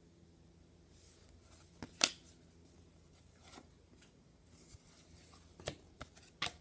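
Trading cards being handled: a few short, sharp clicks and taps as cards are flicked and set down, the loudest about two seconds in, over a faint steady hum.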